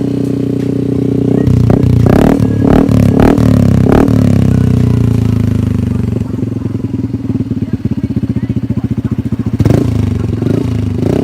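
MSI 125 motorcycle with an Exos R5 exhaust and no dB killer, idling, then blipped several times in quick succession. The revs fall back to a lumpy, pulsing idle, and there is one more short rev near the end.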